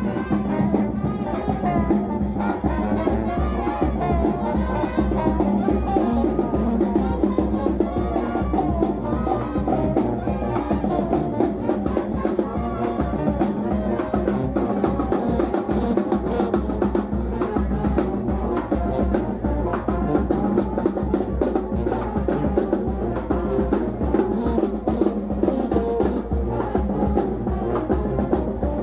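Brass band music with sousaphone, horns, bass drum and snare, the drums keeping a steady street-parade beat under the horns.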